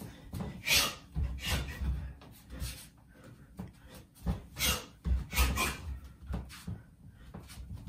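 Bare feet thudding and stepping on a wooden floor, mixed with short sharp swishing noises, from a shadowboxer repeating front teeps followed by a stepping jab and cross. The sounds come irregularly, about one to two a second.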